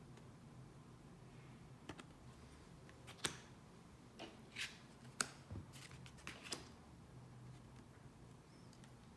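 Tarot cards being handled and turned over one by one: about eight faint clicks and short swishes of card stock between about 2 and 7 seconds in, over a low room hum.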